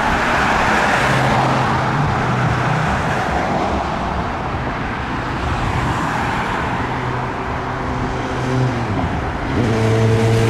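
Road traffic: cars passing along a town street, with a vehicle engine humming steadily underneath. A louder, steady engine hum sets in near the end.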